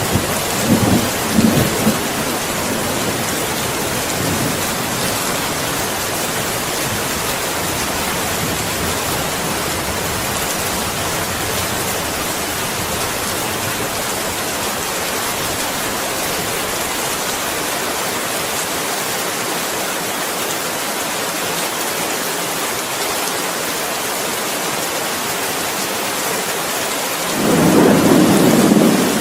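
Steady rain hissing, with rolls of thunder rumbling in the first couple of seconds and again near the end.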